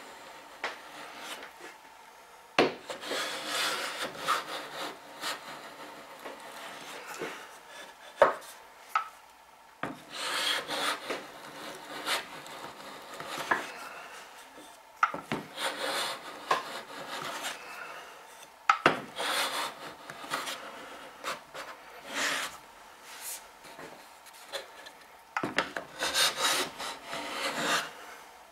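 Metal bench plane taking repeated shavings off a wooden joint as it is cleaned up, each stroke a rasping hiss of blade on wood. A few sharp knocks fall between the runs of strokes.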